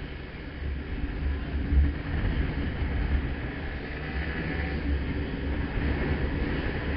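Wind buffeting the microphone of a camera on a moving motorcycle, a gusty low rumble, with the motorcycle's engine and road noise running underneath.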